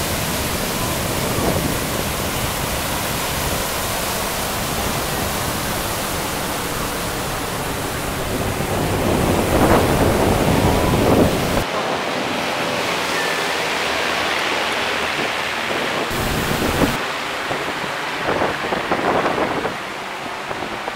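Wind rushing over the microphone, loudest in gusts about halfway through. Under it is the faint drone of a formation of small aircraft flying overhead.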